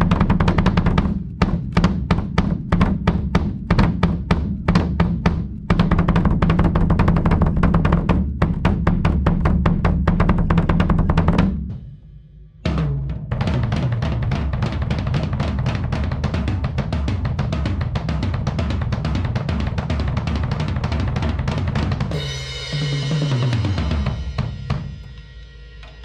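A freshly serviced DW 5000 double bass drum pedal drives very fast, continuous kick-drum strokes. After a short break the full PDP Concept Maple drum kit is played with cymbals, and near the end a cymbal crash and a fill down the toms ring out before the kit falls quiet.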